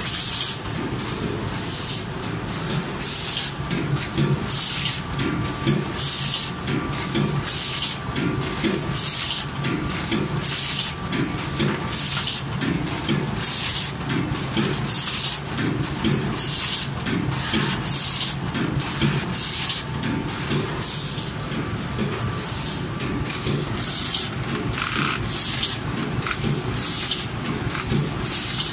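Rotary pouch-filling and sealing machine for washing powder running steadily, with a short sharp air hiss about once a second from its pneumatic grippers and cylinders cycling, over a continuous mechanical rumble and clatter.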